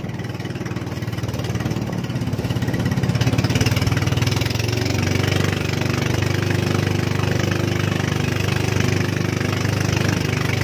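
Engine of a motorized outrigger fishing boat (bangka) running steadily, a little louder about three seconds in.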